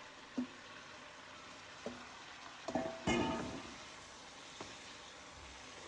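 Pepper and other ingredients frying in a pan with a faint, steady sizzle. A utensil knocks against the pan a few times, and about three seconds in there is a clatter with a louder burst of sizzling that fades over about a second, as the food is stirred.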